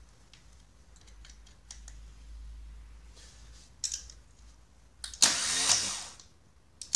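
Starter motor of a 998cc classic Mini A-series engine cranking once, for about a second, about five seconds in, without the engine catching. It is preceded by faint clicks as jump-lead clamps and a screwdriver touch the starter terminals.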